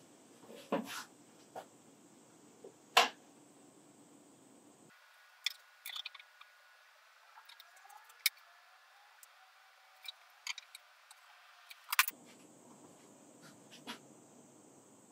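Scattered light clicks, taps and scrapes of hand tools on a wooden cabinet door: a pencil marking and a steel carpenter's square being laid down and handled, with a few sharper clicks.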